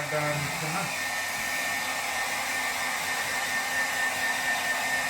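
Hair dryer blowing steadily, an even rush of air with a thin, steady high whine, drying a dog's coat.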